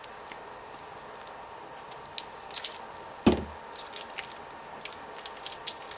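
Plastic packaging clicking and crackling as small plastic Baku-Cores are pried out of it, with one louder knock about three seconds in.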